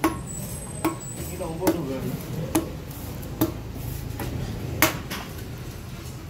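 Heavy cleaver chopping skipjack tuna flesh into chunks on a wooden cutting block: six sharp knocks, each under a second or so apart, the one near the end the loudest.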